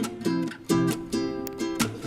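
Background music: acoustic guitar strummed in quick, rhythmic chords.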